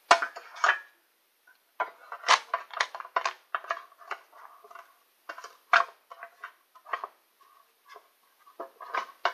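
Metal Pokémon collector tins and trading cards being handled on a desk: irregular clattering knocks, clicks and rattles, in clusters with short pauses between.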